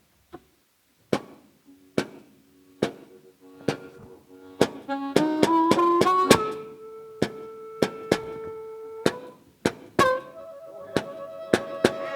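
Solo blues harmonica opening a train piece: sharp taps keep a steady beat about once a second while harmonica notes come in quietly and build into long held chords.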